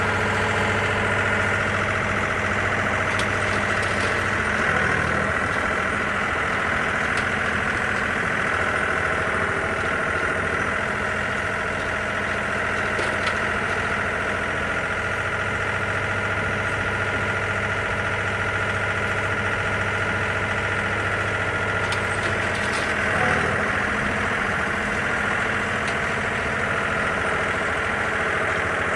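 Tractor engine running steadily at an even speed, with a constant high mechanical whine over the drone.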